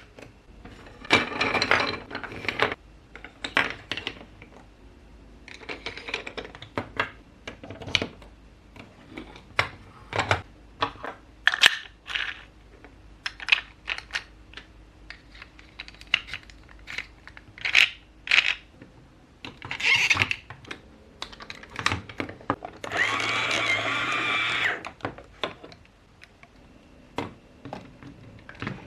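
Plastic building blocks clicking and rattling as pieces are handled and snapped together, in irregular bursts of sharp clicks, with a steadier two-second rattle about three-quarters of the way through.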